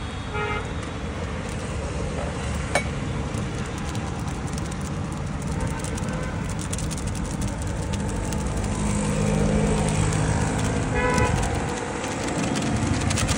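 Steady road traffic noise with a low rumble from passing vehicles, and a single sharp click about three seconds in.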